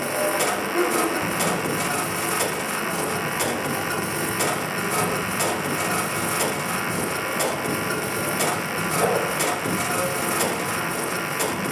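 Live experimental electronic noise music: a dense, grainy crackling texture with many quick clicks, holding steady, played through the venue's speakers.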